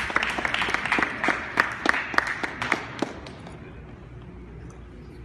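A small group of people clapping, separate claps audible, dying out about three seconds in and leaving the hum of a large room.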